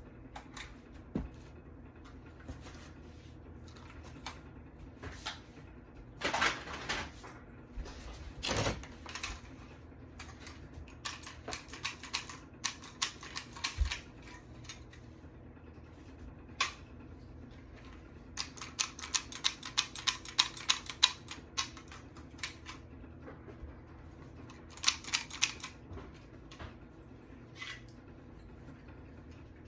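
Irregular sharp clicks and clattering, with quick runs of many clicks in a row and a few louder knocks, like small hard objects being handled and snapped together.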